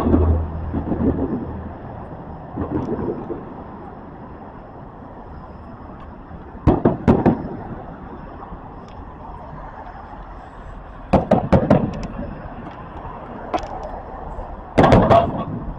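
Fireworks going off: two sharp bangs about seven seconds in, a quick run of four bangs a few seconds later, and a loud bang near the end.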